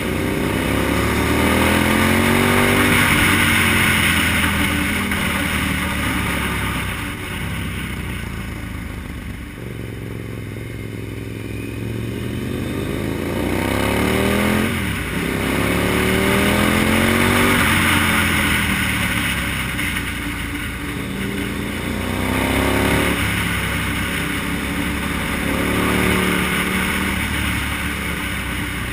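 KTM SM-T motorcycle's V-twin engine under way, its pitch rising under acceleration and falling as the throttle eases off, several times, with a quick drop and re-rise about halfway through. Steady wind noise over the helmet-mounted microphone.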